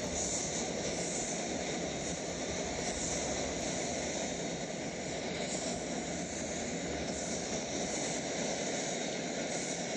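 LEGO model train running past at close range: a steady whir from its electric motor and plastic wheels rolling on plastic track.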